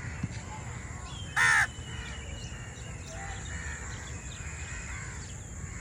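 A crow caws once, loudly and briefly, about a second and a half in, over faint chirping of smaller birds and a steady low hum.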